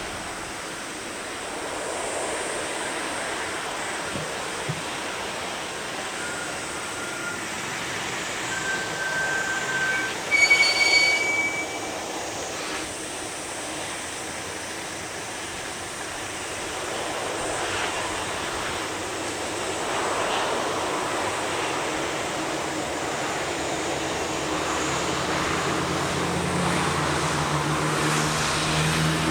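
Steady rumble of distant jet aircraft engines, rising in the last few seconds with a low hum. A few short, high whistle-like notes about eight to eleven seconds in.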